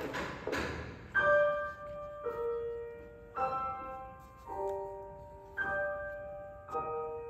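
A string trio playing chamber music: a rough, scratchy passage in the first second gives way to sharply attacked chords that ring and fade, a new chord about once a second.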